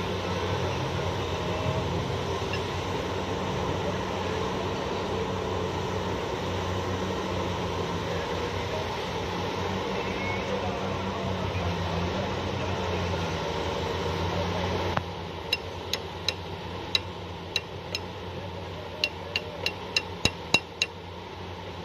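Heavy diesel engine of large mining machinery running with a steady deep drone. About fifteen seconds in the sound drops abruptly, and a quick series of about a dozen sharp clicks follows.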